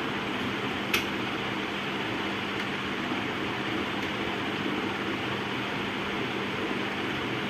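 Steady fan noise with a low hum, and a single sharp click about a second in.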